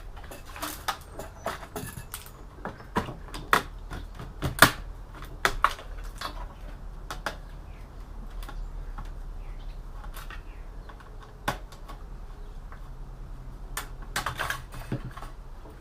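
Irregular light clicks and taps of hands handling the insides of an all-in-one PC while taking it apart; busiest in the first several seconds and again near the end, with a quieter stretch in between.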